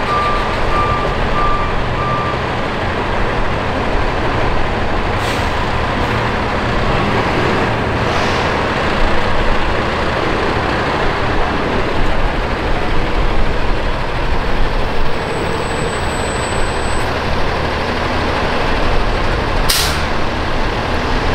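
Heavy diesel semi truck running with a steady rumble as it pulls a lowboy trailer forward. A reversing beeper sounds for the first couple of seconds, and short air-brake hisses come about 5 and 8 seconds in, with a sharper one near the end.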